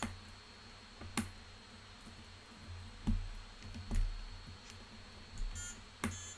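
Clicks and taps as the slide switches on a gutted electronic toy keyboard's circuit board are flipped and its metal key contacts are touched. Near the end the toy's small speaker gives two short electronic bleeps as the circuit responds.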